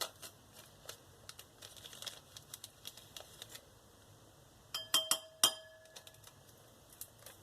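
A small spoon scooping and tapping glitter, heard as a run of light ticks. A little past the middle come three sharp clinks, the spoon striking the container and ringing briefly.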